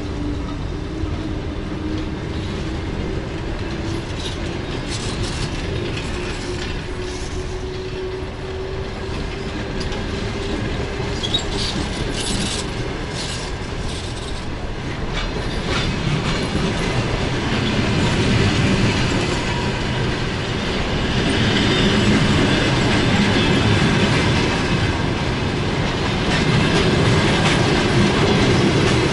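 Passenger train hauled by an EP1 electric locomotive pulling out of a station, its carriage wheels clattering over the rail joints, with brief wheel squeals near the middle. The rolling noise grows louder in the second half.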